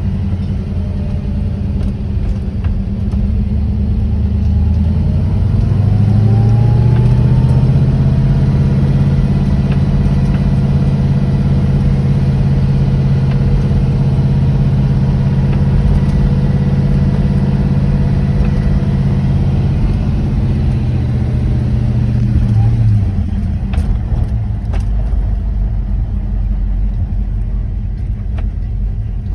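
1979 Camaro Z28's V8 engine running steadily; its speed rises about five seconds in, holds, and drops back near the end.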